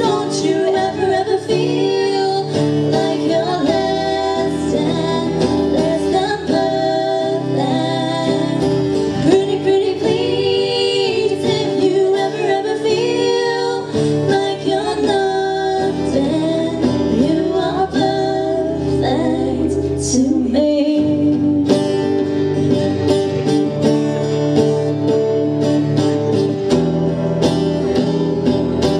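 Two acoustic guitars strummed together with a young woman's voice singing over them, a live acoustic duet.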